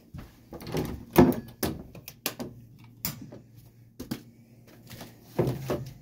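Irregular knocks and thuds of a door and of footsteps going down wooden stairs, over a faint low steady hum from the gas furnace that has just started running.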